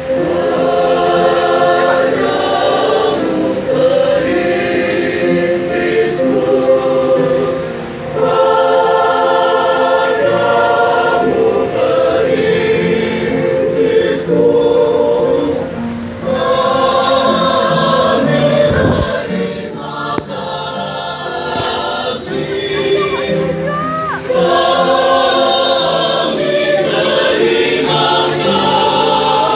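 A large choir singing in harmony, in long held phrases with short breaks between them.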